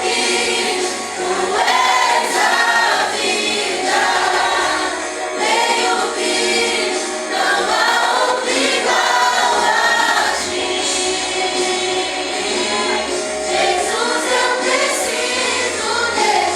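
Church worship group singing a gospel song together, several voices in chorus over musical accompaniment.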